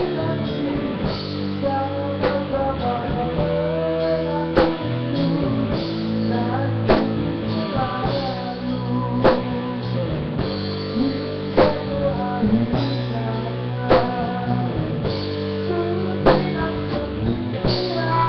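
A rock band playing a slow song: guitars over a drum kit, with a heavy drum hit about every two seconds.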